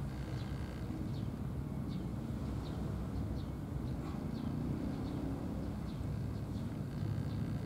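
Outdoor ambience: a steady low rumble with a small bird chirping over it, short high chirps about twice a second.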